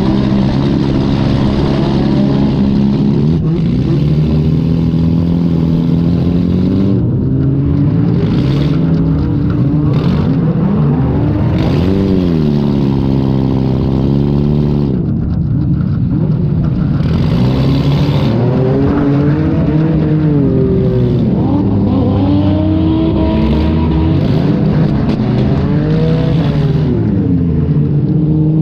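Demolition derby car's engine heard from on board, revving up and down again and again as the driver accelerates and backs off, its pitch rising and falling in long sweeps.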